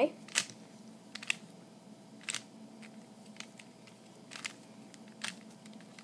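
Stickerless plastic 3x3 Rubik's cube being turned by hand, its layers clacking as each turn snaps into place: short, separate clicks about once a second.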